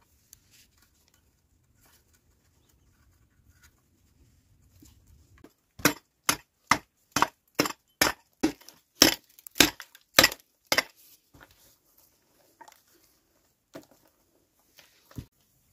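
A hand tool chopping into stony ground: about eleven sharp blows, a little over two a second, with a few fainter knocks after them.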